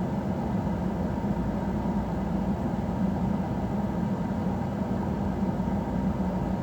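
Steady low hum of a vehicle running, even throughout.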